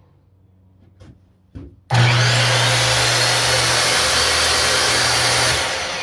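Skil 10-inch sliding miter saw test-run with no cut: two clicks as the trigger lock is released and the trigger pulled, then the motor starts suddenly and the blade spins freely at a steady loud pitch for about three and a half seconds. It is then released and begins winding down near the end.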